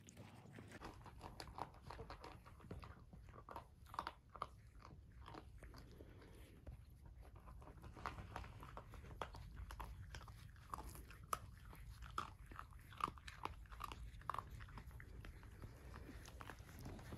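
Cavalier King Charles Spaniel mother dog crunching and chewing dry kibble: a faint, irregular run of small crunches.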